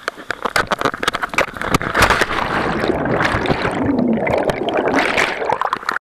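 Wind buffeting a body-worn camera's microphone in crackling gusts during a cliff jump, then a plunge into water about two seconds in, followed by churning, gurgling water as the jumper goes under and surfaces. The sound cuts off suddenly at the end.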